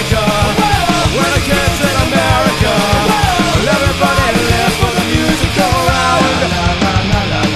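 Rock music soundtrack with a steady beat and a wavering lead melody over a full band.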